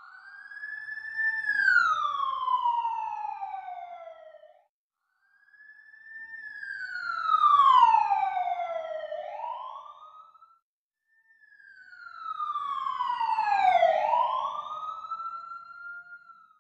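Siren sound effect: three slow wails, each gliding up and then down in pitch with short silent gaps between them.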